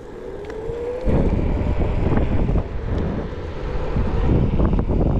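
Onewheel electric board's hub motor whining on the move, its pitch rising over the first couple of seconds as it speeds up. About a second in, loud wind buffeting on the microphone joins it and stays.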